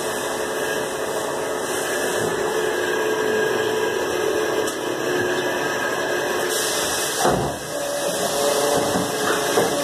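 Wohlenberg paper guillotine running with a steady hum, with a sudden heavy thump about seven seconds in and a smaller knock near the end.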